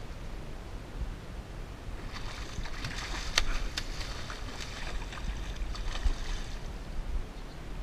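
Boat on calm water: a low wind rumble on the microphone and water moving against the hull, with a patch of splashy hiss and a few sharp clicks about two to four seconds in.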